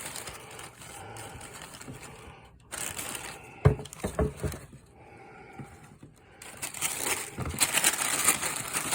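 Shoebox being handled and opened, with a few sharp knocks about halfway through, then tissue paper crinkling and rustling, louder near the end.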